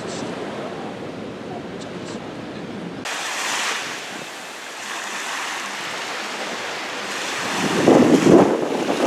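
Ocean surf washing on a beach, with wind buffeting the microphone. The sound changes abruptly about three seconds in, and a gusty rumble near the end is the loudest part.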